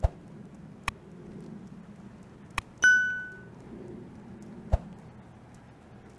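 A few sharp clicks and knocks, and about three seconds in a single clear metallic ding that rings out and fades over about half a second.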